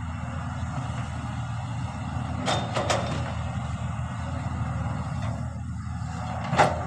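Heavy diesel engine running steadily at a low rumble, with sharp metal clanks a couple of times about two and a half seconds in and a louder clank near the end.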